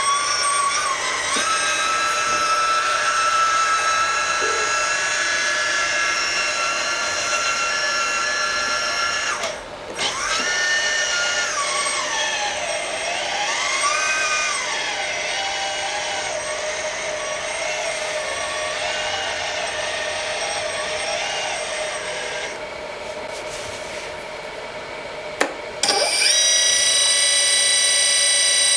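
Kabolite K350-200 RC hydraulic excavator's electric hydraulic pump whining, with no sound module running. Its pitch rises and falls as the hydraulic functions are worked. The whine drops out briefly about ten seconds in and jumps to a higher, steady pitch near the end.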